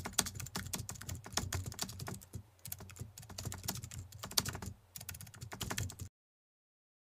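Keyboard typing sound effect: rapid, uneven key clicks that stop abruptly about six seconds in.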